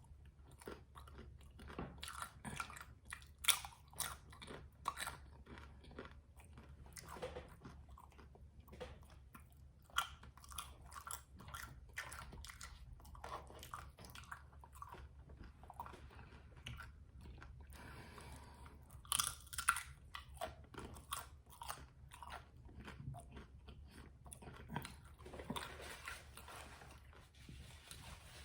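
A person eating close to the microphone: chewing with many short, crisp crunches, the loudest clusters a few seconds in, about ten seconds in and near two-thirds of the way through, over a faint steady low hum.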